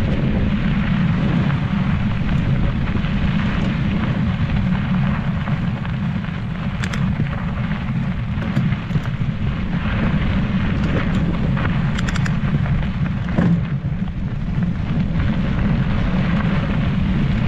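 Heavy wind buffeting and trail rumble on a mountain bike rider's camera microphone: a loud, steady low rumble, with the hiss and crunch of tyres rolling on a dry gravel trail and scattered sharp clicks and rattles from the bike.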